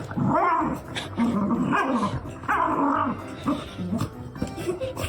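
A dog vocalizing in three drawn-out calls whose pitch wavers up and down, then a few shorter sounds, with background music underneath.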